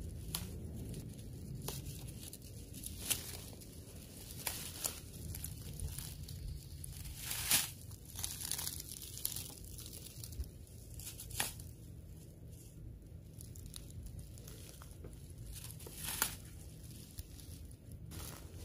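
Leafy greenbrier vines rustling and crinkling as young shoots are snapped off by hand, with a handful of sharp snaps scattered through, the loudest about halfway in. A low steady rumble runs underneath.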